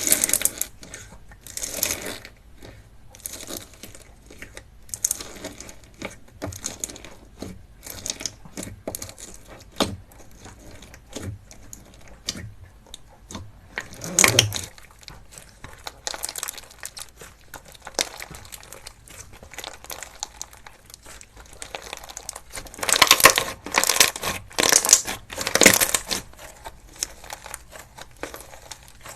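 Crunchy slime being squeezed and pressed by hand, giving irregular crackling and crunching clicks, with louder bursts of crunching about halfway through and again near the end.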